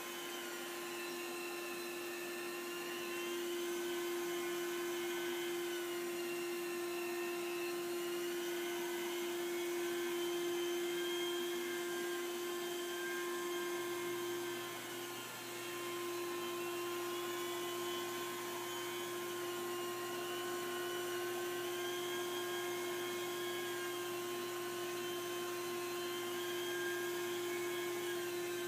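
Rotary carpet-extraction machine and its suction hose running during hot-water carpet cleaning: a steady hum with a higher whine that wavers slightly in pitch.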